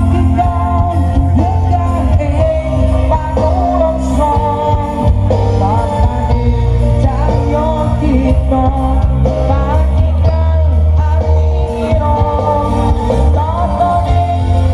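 Loud music with a singer over a heavy, steady bass, played through a big carnival sound system.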